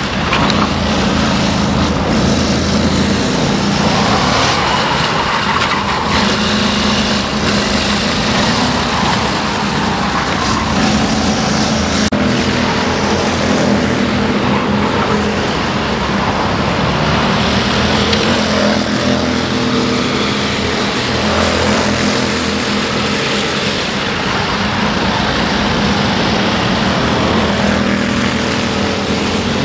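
Racing go-kart engines running, several karts lapping the circuit at once, their overlapping engine notes rising and falling as they pass.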